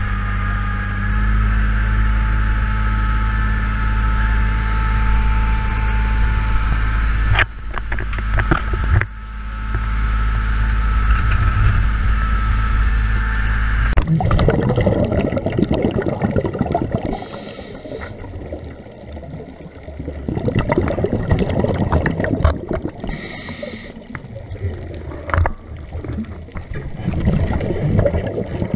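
Dive boat's engine running steadily with a low hum and a few fixed whining tones. About halfway through it changes abruptly to underwater sound: bubbling and rushing water around scuba divers at the boat's ladder.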